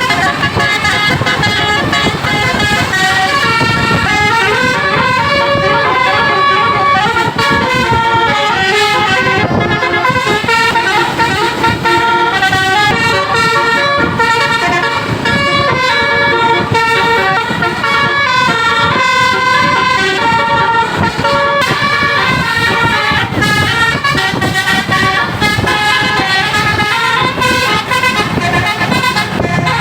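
Bus-mounted Basuri telolet horn set playing a continuous tune, several horn tones sounding together and stepping from note to note, over a low vehicle rumble.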